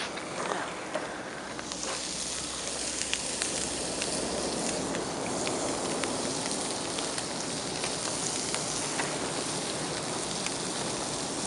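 Meat sizzling on a barbecue grill: a steady hiss with scattered pops and crackles.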